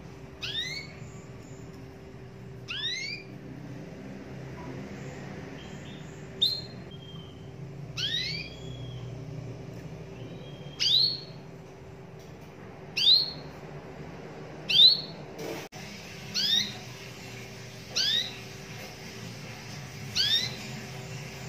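Domestic canary giving short chirping call notes, each a quick rising sweep, repeated about ten times at roughly two-second intervals.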